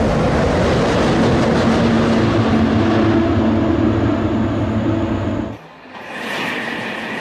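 High-speed L0 series maglev train passing, a loud steady rushing noise with a low hum in it that cuts off suddenly about five and a half seconds in. A thinner, hissing rush of air follows and builds near the end as the train streaks past.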